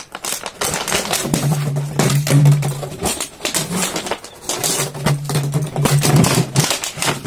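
Empty plastic water bottle crackling and clattering on a concrete floor as a dog mouths and pushes it about: a quick, irregular run of clicks and knocks. A steady low hum comes in twice underneath.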